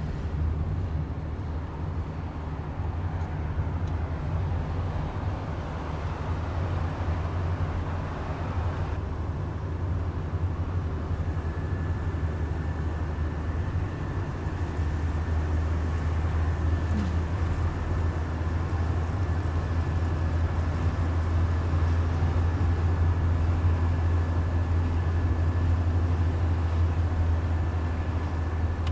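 Car cabin noise while driving in city traffic: a steady low engine drone with tyre and road noise, getting a little louder in the second half. A faint steady high whine joins about a third of the way in.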